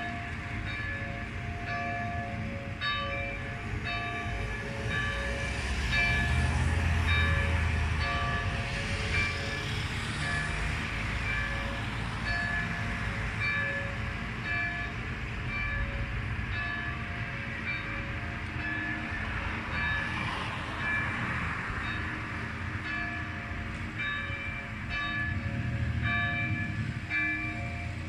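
Church bells of St. Gerard's Catholic church in Vršac pealing: several bells of different pitch swinging and striking in an overlapping, uneven rhythm, each stroke ringing on. A steady low rumble runs underneath.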